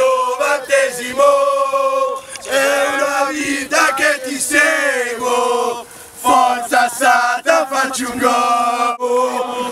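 Group of football supporters singing a chant together in unison, in held notes and short phrases.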